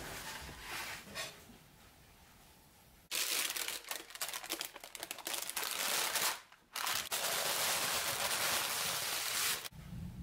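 Baking parchment paper crinkling and rustling as it is handled and pulled out from under a baked pie crust. The crackling starts about three seconds in and runs in two long stretches with a short break in between.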